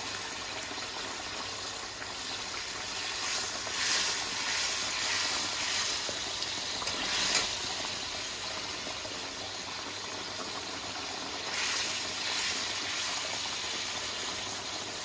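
Curry sauce sizzling and bubbling in a pan as pieces of fried sea bass are laid into it, with three louder surges of sizzle.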